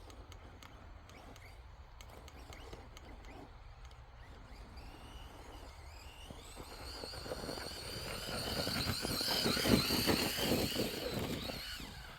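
Electric RC monster truck's motor whining, climbing in pitch as it speeds up a snowy hill. The whine builds from about halfway through, is loudest near the end, then drops away.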